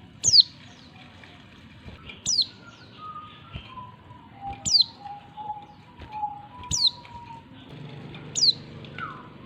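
Female oriental white-eye giving short, high call notes that drop steeply in pitch, five of them about two seconds apart. This is the call that bird keepers play to lure and excite males.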